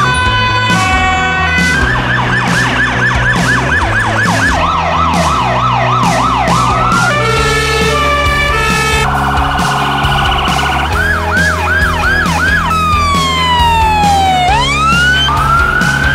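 A run of different emergency-vehicle sirens cut one after another: two-tone hi-lo, fast yelps, a rapid warble and slow falling and rising wails, each lasting only a second or a few seconds. A steady low music beat runs underneath.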